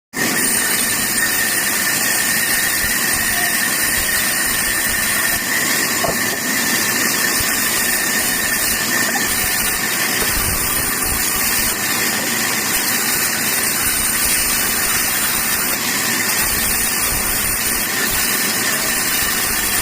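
Bandsaw running steadily: an even, loud hiss with a thin high whine held throughout.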